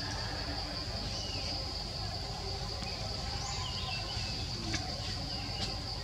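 Steady high-pitched insect drone over low background noise, with a few faint short chirps over it.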